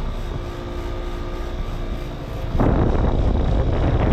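Air-conditioning condensing unit running: a steady hum with a few held tones. About two and a half seconds in, a much louder rushing noise takes over.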